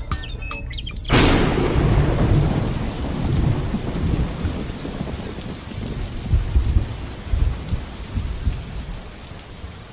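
Thunderstorm sound effect: a sudden thunderclap about a second in, then steady heavy rain with rolling low thunder rumbles, fading toward the end.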